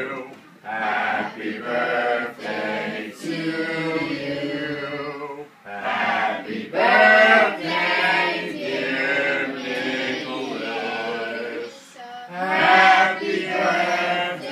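A group of people singing a birthday song together in unison around a lit birthday cake, phrase after phrase with short breaths between lines.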